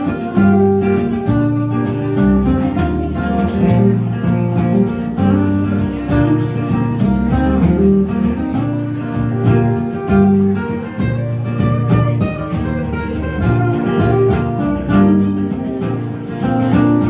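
Instrumental break of a folk-rock song: acoustic guitar strumming chords over a steady, changing bass line, without vocals.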